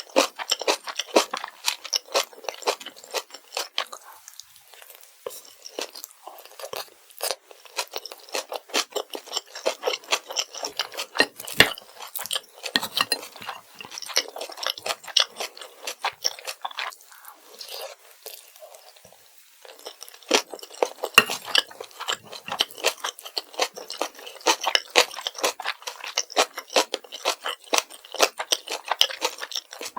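Close-miked chewing of kimchi fried rice: rapid, crunchy, wet mouth sounds that ease off briefly twice, about a quarter of the way in and again past the middle.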